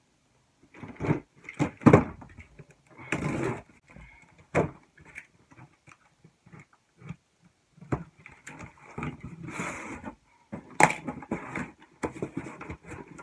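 Cardboard shipping box being opened by hand: tape and cardboard flaps tearing and rustling in irregular bursts, with a few sharp knocks, the sharpest near the end.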